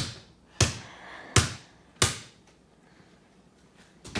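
A basketball bouncing: four sharp bounces roughly two-thirds of a second apart, each with a short ringing tail, then another bounce near the end.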